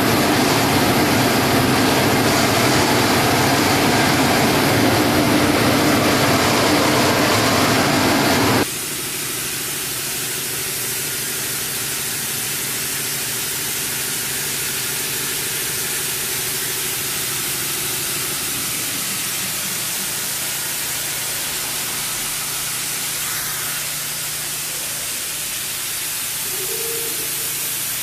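Timesaver wide belt grinder running with a loud, steady mechanical din and hum. About nine seconds in it cuts off abruptly to a quieter, steady hiss with a faint low hum.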